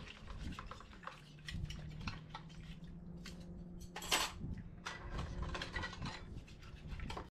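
Dishes and cutlery clinking and knocking, as in washing up, with many irregular clicks, one louder knock about four seconds in, and a low steady hum beneath.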